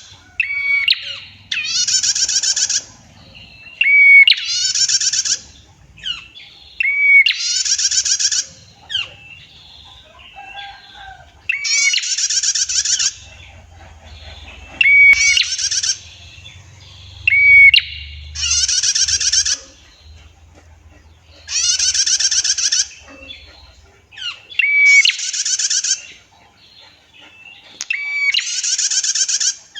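Female prinia (prenjak) calling: a long, buzzy trilled 'tiir' note about a second long, repeated every three to four seconds, with short sharp chip notes in between.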